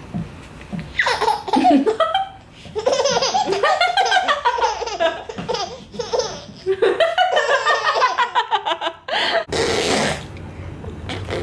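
Nine-month-old baby laughing in a run of short bursts, with a brief rush of noise near the end.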